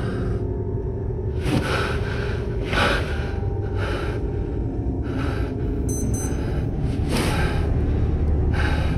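A man breathing hard in short gasping breaths, roughly one a second, over a steady low rumble.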